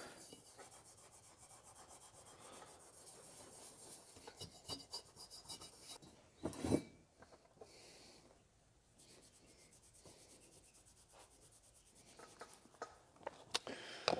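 Cloth rubbing polishing compound onto the painted fount of a Coleman single-mantle lantern, quick rapid strokes, faint. A single knock about halfway through, and a few sharp clicks and taps near the end as the compound tin is handled.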